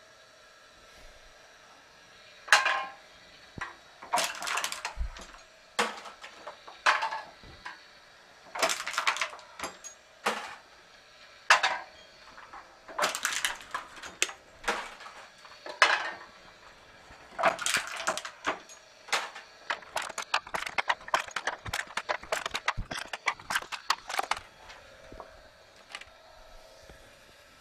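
Motor-driven pitman rod can crusher crushing a can: a metal crunch and clank with each stroke, about one every second and a half, turning into a faster, denser clatter for several seconds before it stops near the end.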